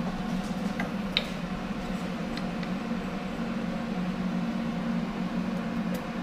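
Steady hum of a fan running, with a few light clicks and taps, the sharpest about a second in, as a hand works the gas cylinder's valve and regulator.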